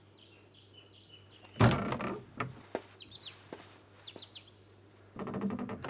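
Wooden lattice door pushed open with a sudden knock about a second and a half in, followed by a few smaller clicks, and a quick rattle of clicks near the end. Birds chirp in short falling calls throughout.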